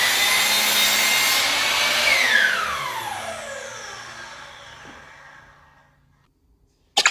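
Electric miter saw running at full speed through a cut in wood, then released about two seconds in: the motor winds down with a steadily falling whine and fades out over about four seconds. The saw starts again suddenly right at the end.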